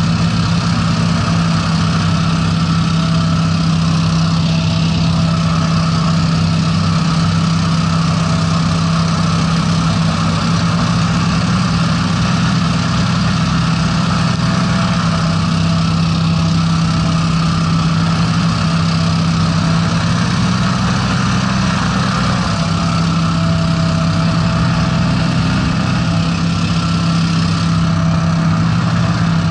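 Breeze 420 hovercraft's twin Honda 690 V-twin engines running steadily under way, a loud constant drone heard from on board.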